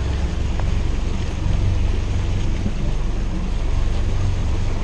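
Fishing boat's engine running steadily while trolling, a low drone under the rushing wash of the wake and wind.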